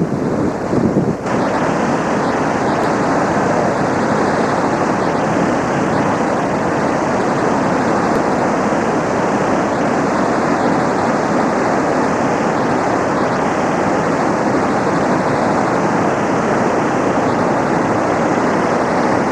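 Heavy, steady rush of water pouring out below the Oker dam, a dense roar with no let-up, released while the reservoir is close to full. The noise shifts briefly with a small dip about a second in.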